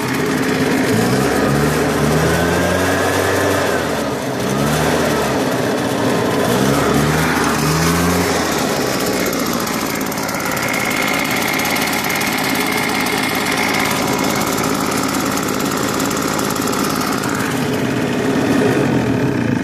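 Husqvarna 150BT backpack leaf blower's two-stroke engine running after a carburetor clean-out and new diaphragm gasket. It is revved up and down several times in the first half, then held at a steady speed.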